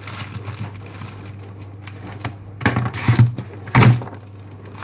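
Handling noises at a kitchen worktop: light clicks and scrapes, then three louder knocks close together about three seconds in, over a steady low hum.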